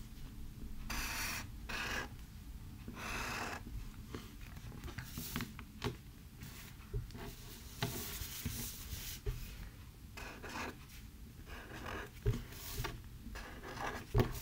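A Sharpie permanent marker drawing on paper: the felt tip rubs and scratches along the lines in short, irregular strokes, with a few pauses between them.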